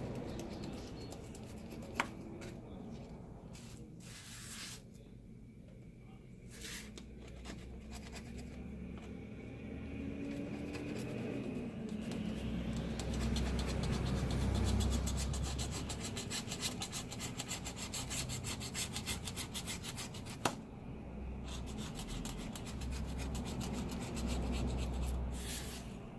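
Flat screwdriver scraping old adhesive and glass fragments off an iPad Air's frame: stretches of rapid rubbing strokes that grow denser and louder in the second half, with two sharp ticks, one about two seconds in and one later on.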